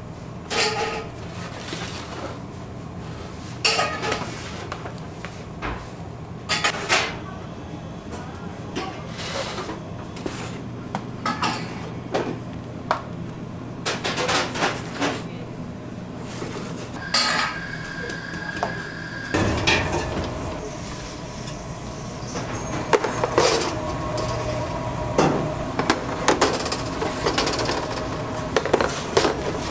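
A metal offset spatula scraping and tapping against metal sheet pans as sponge-cake batter is spread, with clinks and clatter of the pans over a steady kitchen hum. A steady high tone sounds for about two seconds past the middle. After that the background grows louder and busier as sheet pans are slid into a deck oven.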